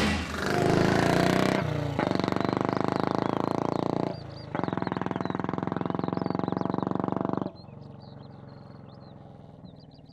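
Vintage motorcycle engine revving hard and accelerating away, with a brief dip about four seconds in. About seven and a half seconds in it drops suddenly to a much fainter, fading engine note, with birds chirping.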